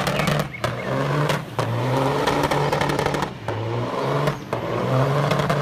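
Big diesel semi truck revving hard while spinning its rear tyres in a burnout. The engine climbs in pitch in repeated surges with short breaks between them, over a loud hiss of spinning tyres.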